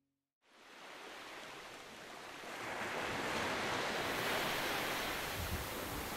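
Sea surf washing on a beach, a steady wash of noise that fades in after half a second of silence and grows louder over the next couple of seconds.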